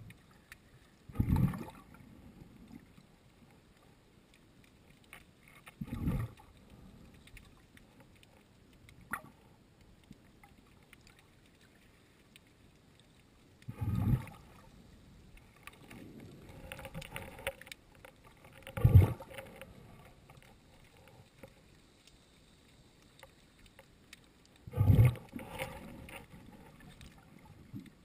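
Muffled swishes and surges of water heard through an underwater camera's waterproof housing just below the surface: five short, loud low-pitched bursts, one every five seconds or so, with a faint steady wash between them.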